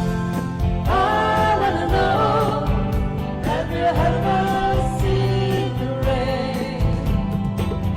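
A song with a sung melody over a bass line and a steady percussion beat.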